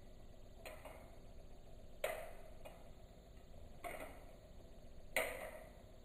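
Butterfly knife (balisong) being twirled through the fingers. Its metal handles and blade clack sharply at irregular intervals, about six times, each with a brief metallic ring. The loudest clack comes near the end.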